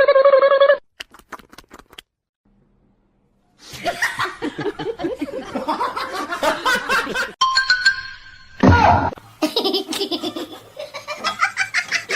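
A short high-pitched sound at the start. Then, from about four seconds in, people laughing heartily in repeated bursts, with music underneath and a brief low thud about nine seconds in.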